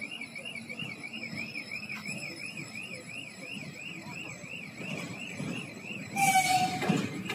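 Level-crossing warning signal warbling steadily, rising and falling about two and a half times a second. Near the end the approaching VL80S electric locomotive sounds a short, loud horn blast, and its train's low rumble builds.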